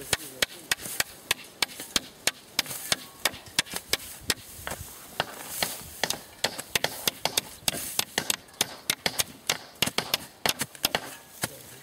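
Steel spade blade chopping into grassy turf and roots in quick, sharp strikes, about three a second. There is a short scrape of soil near the middle.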